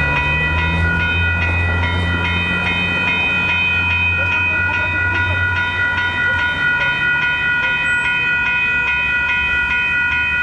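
Railroad crossing warning bell ringing steadily, a rapid run of high, ringing tones, as the gates are down for a Blue Line light-rail train. A low rumble from the passing train sits under it, strongest in the first half.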